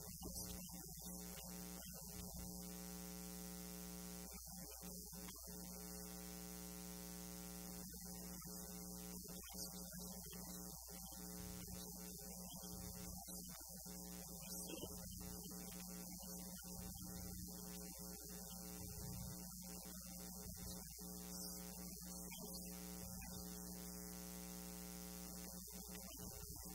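Steady electrical mains hum with a ladder of evenly spaced overtones. No voice is heard.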